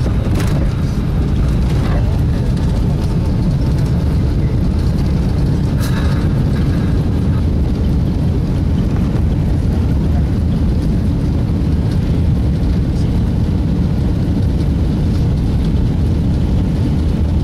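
Boeing 757 cabin noise during landing, heard from inside the cabin: a steady, loud, low rumble of engines and airflow with no letup. A brief faint rattle comes about six seconds in.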